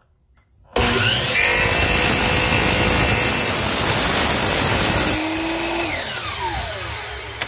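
DeWalt sliding compound miter saw switched on under a second in, its motor spinning up with a rising whine as the blade cuts a 45-degree bevel along the edge of a wooden frame piece. About five seconds in the trigger is released and the blade winds down with a falling whine.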